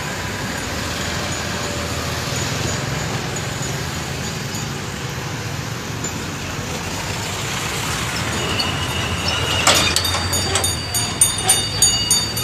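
Steady street traffic rumble; from about ten seconds in, a quick run of sharp clinks and knocks with short ringing, as crates of beer are handled off an overturned truck.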